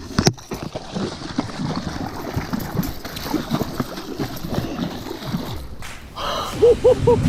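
Water splashing and sloshing beside the boat as a big muskie is grabbed and hauled in, with scattered knocks. A short repeating musical figure comes in near the end.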